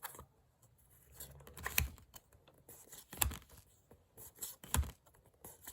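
Trading cards being handled and flipped through by hand: soft card rustling with three sharp snaps about a second and a half apart.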